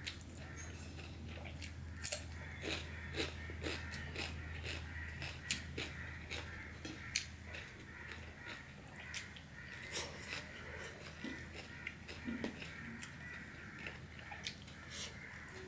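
Close-miked eating by hand: fingers mixing rice and curry on a steel plate, with wet chewing and lip smacks, many small clicks and smacks. A low steady hum underneath stops about halfway through.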